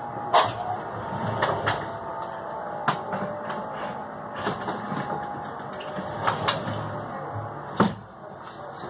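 Sliding wardrobe door being handled and things moved about on its shelves: a series of sharp knocks and clicks with rustling between them, the loudest right at the start and another near the end.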